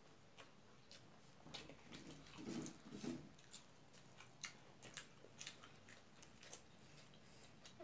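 Faint eating sounds of a hand-eaten meal of rice and singju salad: scattered soft clicks of chewing and of fingers mixing food on the plates, a little busier about two to three seconds in.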